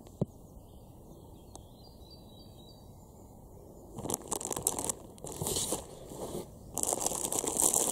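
Clear plastic packaging bag crinkling and rustling as the plush toy sealed inside it is handled, in several bouts that start about halfway through. Before that, a bird chirps a faint short run of notes.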